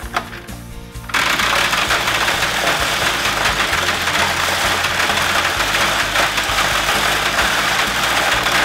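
A few light clicks of die-cast mini cars being set down on a plastic playset, then a loud, steady engine-like racing noise that starts suddenly about a second in, over soft background music.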